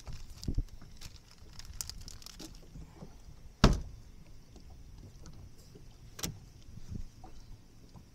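Handling noises in a bass boat: a few sharp knocks and thumps, the loudest one about three and a half seconds in and another about six seconds in.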